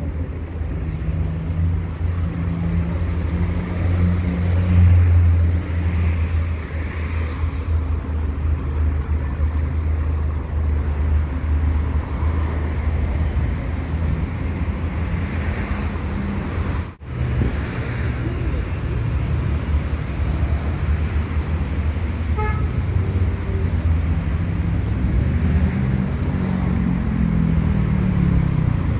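Road traffic on a city street: a steady low rumble of car engines running, with a brief high beep about two-thirds of the way through and a vehicle passing near the end, its engine note falling in pitch.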